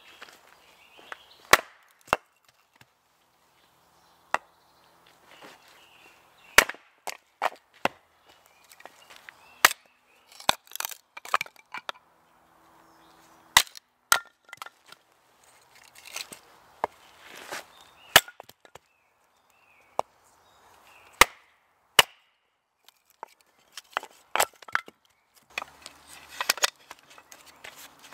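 Hatchet splitting firewood on a wooden chopping block: sharp, separate cracks as the blade strikes and splits the wood, every second or two, with quieter handling between strikes. Near the end the strikes come quicker as thin kindling is split.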